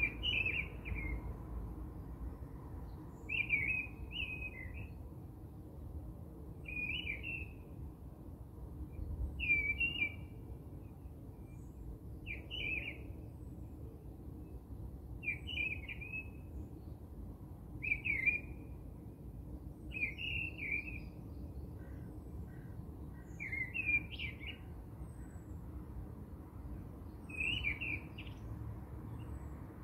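A bird repeating a short chirping call about every three seconds, over a faint low background hum.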